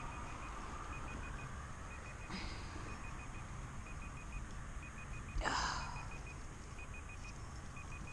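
A phone beeping faintly and steadily in quick groups of about four beeps, repeating roughly once a second, over a low steady hum. A brief rushing swish, the loudest sound, comes about five and a half seconds in, with a smaller one a little after two seconds.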